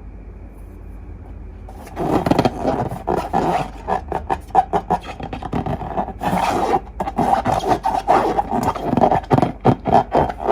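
Slime being squished and kneaded by hand, a dense, irregular run of sticky crackles and squelches that starts suddenly about two seconds in.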